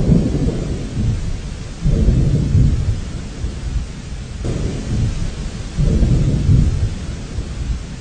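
Wind buffeting a camera microphone on a moving motorbike. It rumbles low and rises in four gusts about two seconds apart.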